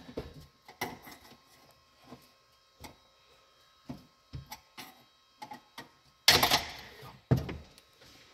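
Scattered clicks and knocks of hands and tools working on a car's plastic interior parts, with a louder rush of noise lasting about a second near the end and a shorter one right after.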